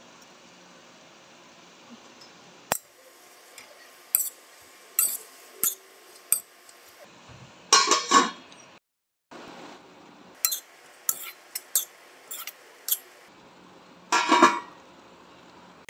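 Stainless-steel cookware clinking: scattered sharp metal clicks and taps, and two longer clattering bursts from the steel pan lid being handled on the pan, about eight seconds in and near the end.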